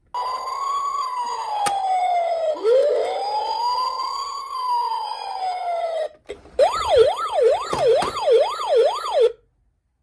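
Electronic siren of a City Ranger toy ambulance: two slow wails that rise and fall, a short break, then a fast yelp of about two cycles a second that cuts off suddenly. A single sharp click sounds during the first wail.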